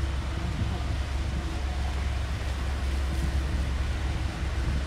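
Large steel fishing vessel's engine running with a steady low drone as the ship passes close by, with wind noise on the microphone.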